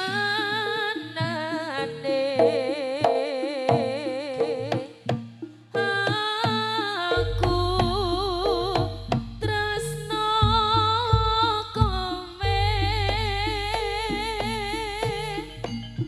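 Live jaranan music: a wavering lead melody with heavy vibrato over drum strokes. A deep bass joins about seven seconds in.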